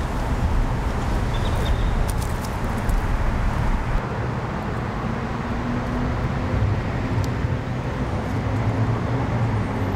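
Steady road traffic rumble from passing cars, with a low engine hum coming in about halfway through.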